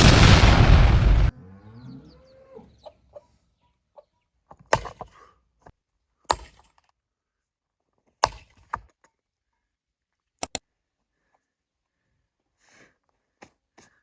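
An animal's loud harsh cry lasting about a second, then a short falling cry, followed by four sharp knocks about two seconds apart, the last one a quick double.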